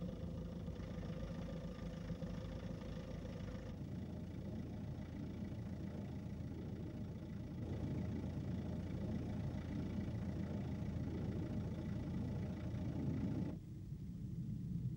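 Engine of a military four-wheel-drive vehicle running, a steady low sound with a clear hum in the first few seconds. The sound changes abruptly about four seconds in and becomes quieter shortly before the end.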